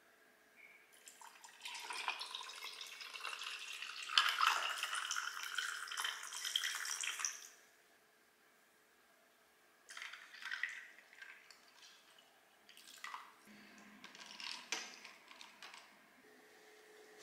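Coffee poured from a pitcher over ice cubes in a glass tumbler, a steady pour lasting about six seconds. After a pause, a glass straw stirs in the drink with scattered light clinks against the ice and glass.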